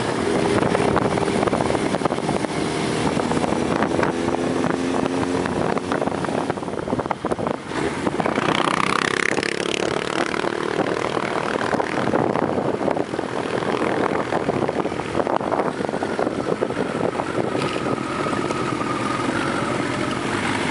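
Motorcycle engine running under way, with heavy wind noise on the bike-mounted camera's microphone. The engine pitch rises and falls through the first few seconds as the rider works the throttle.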